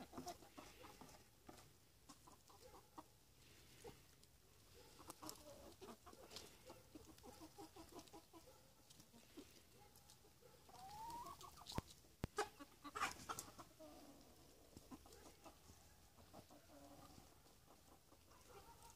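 A flock of domestic chickens clucking softly and steadily. A little past halfway there is one rising call, followed by two sharp clicks.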